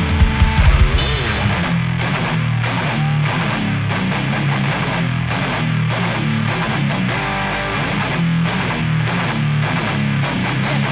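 Live hardcore band playing a heavy riff on distorted electric guitars and bass, with hard drum hits in the first second.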